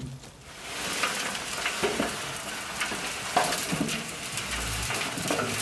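Compost tumbler being turned, its wet contents sliding and tumbling inside with a rushing sound like crashing waves, with a few short low creaks from the drum.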